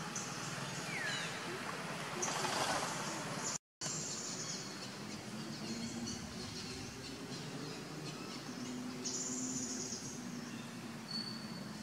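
Outdoor ambience of birds calling: short high buzzy chirps and a falling whistle about a second in, over a faint low hum. The sound cuts out completely for a moment a little over three seconds in.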